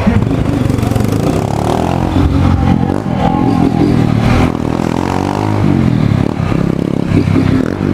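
Motorcycle engine running while riding, its pitch rising and falling as the rider accelerates and eases off.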